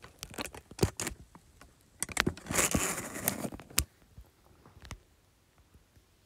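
Handling noise from the phone that is recording: taps and clicks, then a burst of rubbing and crackling against its microphone as it is picked up and moved, ending in a sharp click.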